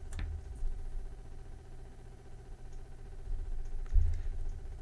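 Quiet handling noise as desoldering station parts are fitted together: dull low bumps and faint ticks, with one louder thump about four seconds in, over a faint steady hum.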